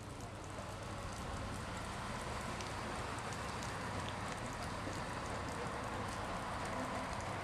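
Steam locomotive approaching under steam: a steady hissing rumble that grows slowly louder, with scattered faint ticks.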